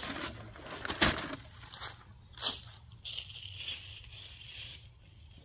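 Footsteps crunching through dry fallen maple leaves: four irregular crunches in the first two and a half seconds, then a softer rustling hiss.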